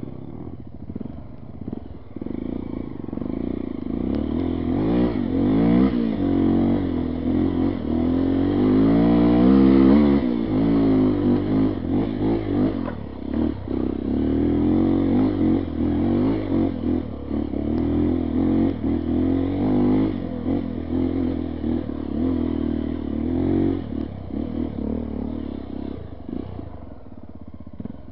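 Honda XR 250 Tornado's single-cylinder four-stroke engine under way on a dirt trail, the revs rising and falling over and over with the throttle. It is loudest about ten seconds in.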